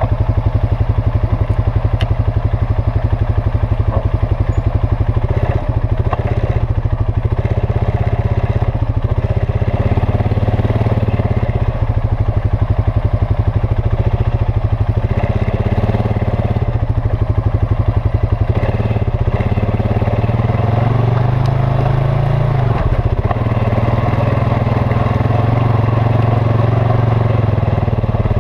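Quad (ATV) engine running close to the microphone as the machine crawls over a rough dirt trail. The engine speed rises and falls a few times.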